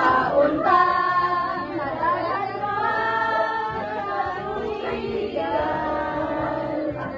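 A group of women singing a birthday serenade together, in sung phrases with long held notes.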